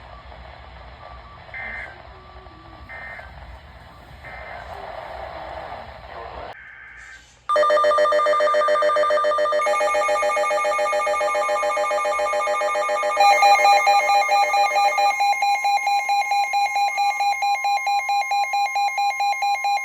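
Several weather alert radios sounding their alarms together: loud, rapidly pulsing electronic beeps in several pitches. They start about seven and a half seconds in, with the mix of tones changing as units join or drop out, and cut off just before the end. Before the alarms there is only faint hiss and hum.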